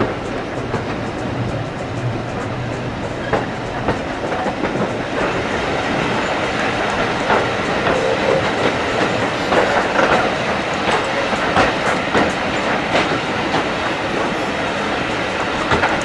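Steam-hauled heritage train running along the track: a steady rumble with the wheels clicking and knocking over the rail joints.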